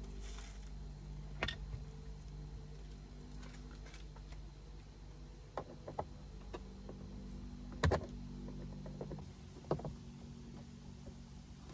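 A handful of small, sharp clicks and knocks as a screw is worked out of a glove-box bracket in a car's dashboard, the loudest about eight seconds in. Under them runs a steady low hum.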